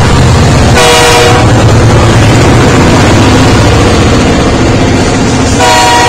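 A consist of BNSF diesel locomotives passing close by, engines running with a steady low rumble. A locomotive air horn sounds a short blast about a second in, and a longer one begins near the end.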